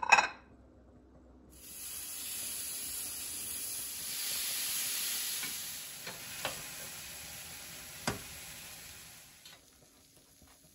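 Tomatoes and chiles sizzling on a hot comal as they brown, a steady hiss that starts suddenly about a second and a half in, with a few small pops, and fades out near the end.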